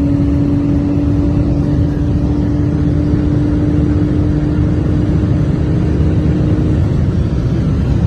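Car at speed heard from inside the cabin: steady wind and road rumble with a steady whine that drops slightly in pitch at the start and fades out near the end.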